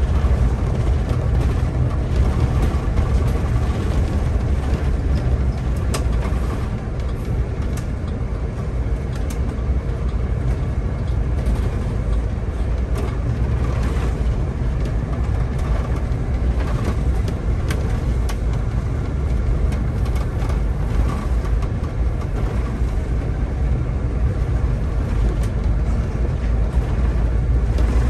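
Solaris Urbino 18 articulated city bus under way, heard from the driver's position: a steady low engine and road rumble, with occasional light clicks and rattles.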